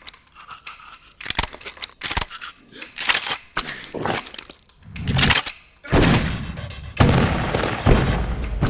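A rapid, irregular string of sharp cracks and bangs, getting denser and louder from about five seconds in.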